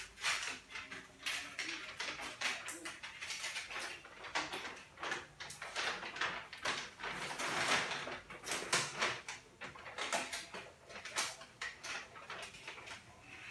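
A large sheet of chart paper rustling and crinkling as it is lifted, folded back and pulled down off a whiteboard, in an irregular run of crackles.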